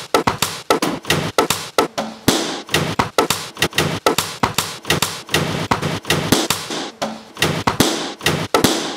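A fast collage of sharp knocks, taps and thuds made with books on shelves and tables, several a second, broken by a few short stretches of paper rustling as newspaper pages are turned.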